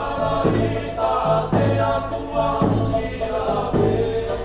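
Live Cook Islands band music: a group of voices singing together over an instrumental backing with a bass note that recurs about once a second.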